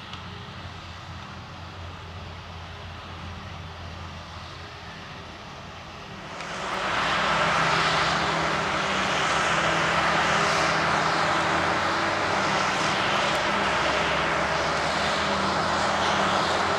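A tractor engine running at a steady pace as a JCB Fastrac tows a loaded silage trailer across the field. About six seconds in, the sound turns much louder and denser: a Claas Jaguar forage harvester running flat out, picking up and chopping grass and blowing it into a trailer, a steady engine drone under a loud rushing, whining noise.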